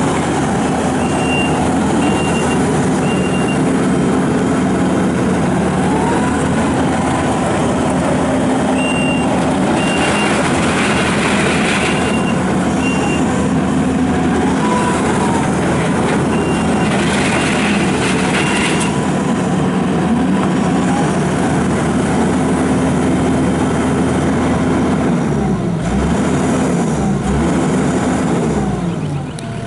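Kubota SVL75-2 rubber-track skid steer loader's diesel engine running as the machine is worked, its pitch dipping and rising with the throttle. In three separate spells a backup alarm sounds a run of short high beeps, about three a second.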